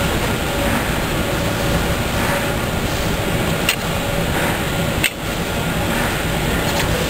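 Steady machinery noise of a factory floor, a continuous hum and rush with a faint steady tone, broken by two sharp clicks about a second and a half apart in the middle.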